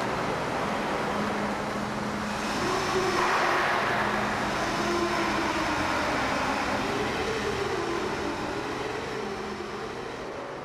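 Steady mechanical din with a low hum and a wavering tone through the middle, beginning to fade out near the end.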